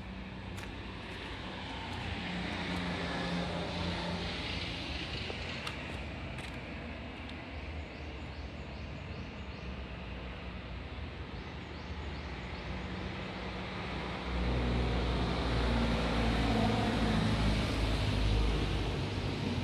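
Road traffic passing on an adjacent street, a steady wash of car noise. About three-quarters of the way through it swells into a louder low rumble, as of a vehicle going by close.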